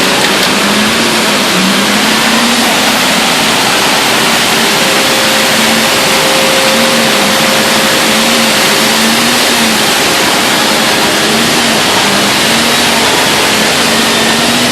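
A heavy vehicle engine running steadily under a loud, even hiss, with a low tone that wavers up and down about once a second.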